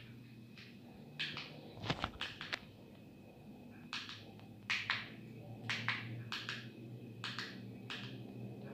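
Handling noise from a hand moving a glass jar of Christmas lights: irregular soft rustles and scrapes with a few sharp clicks about two seconds in, over a faint steady hum.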